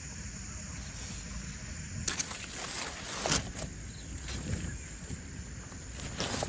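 Crackling rustle of dry leaves and brush being disturbed, in two bouts about two seconds in and near the end, over steady low background noise.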